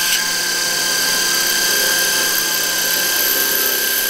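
HiKOKI WH12DD 10.8 V cordless impact driver with a 4.5 mm bit drilling through a ceramic tile, running steadily under load and cutting off suddenly about four seconds in as the bit breaks through.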